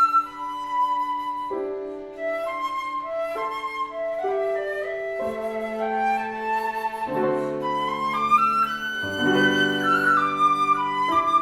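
Instrumental music from a trio: a high, sustained melody moving note by note over held lower notes that change every second or two.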